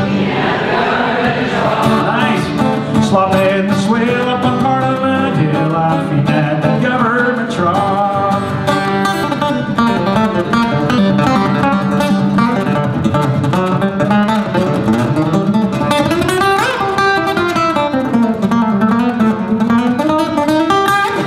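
Acoustic guitar strummed steadily under singing: a live song with no break.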